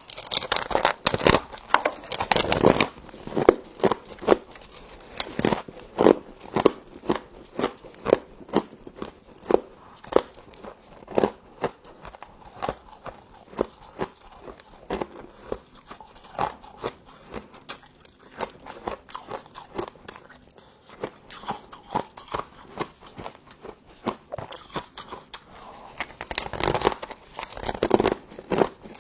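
Frost being bitten and chewed: a dense burst of crunching, then single chewing crunches about once a second, and another burst of biting near the end.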